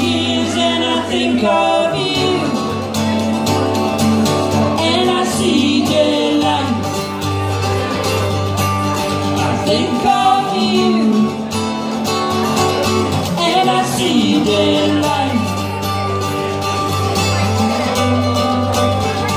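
Live acoustic music: a steel-string acoustic guitar strummed steadily, with a woman singing at times over it.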